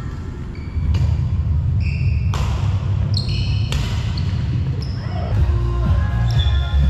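Badminton rally: three sharp racket strikes on the shuttlecock about 1.4 s apart, with short high squeaks of court shoes on the floor. A steady low hum runs underneath.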